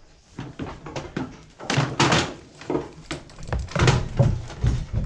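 A series of thumps and knocks, goat hooves scrambling on a wooden goat stand, with louder scuffles about two and four seconds in.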